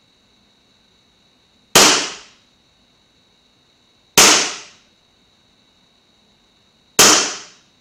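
WE XDM 4.5 gas blowback airsoft pistol firing three single shots on green gas, about two and a half seconds apart. Each shot is a sharp crack that dies away within about half a second. It is shooting 0.20 g BBs through a chronograph at about 309 fps.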